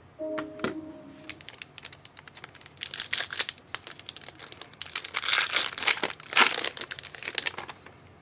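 Trading-card pack wrapper being torn open and crinkled by hand: scattered small clicks and crackles, with louder bursts of crinkling about three seconds in and again from about five to six and a half seconds.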